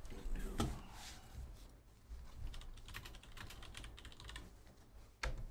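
Typing on a computer keyboard: runs of quick key clicks, densest in the middle, with a louder knock about half a second in and another near the end.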